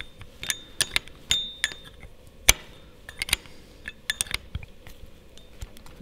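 Metal clicks and clinks of a combination spanner on the counter nut of a worm screw, the screw held with a screwdriver, as the nut is tightened against the actuator housing. Irregular sharp clicks, a few with a short ring, the loudest about two and a half seconds in.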